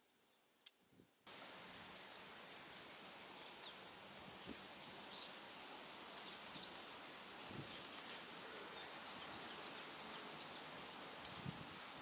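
Outdoor field ambience that cuts in suddenly after about a second of near silence: a steady hiss with faint scattered chirps. A few soft low knocks come from the trap being handled on the ground.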